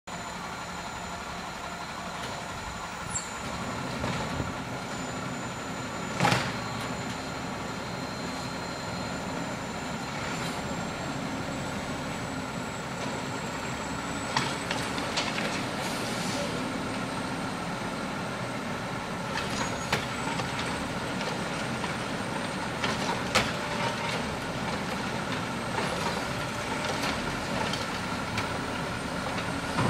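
Garbage truck's engine running steadily while it collects yard waste, with a series of sharp clanks over the half minute, the loudest about six seconds in.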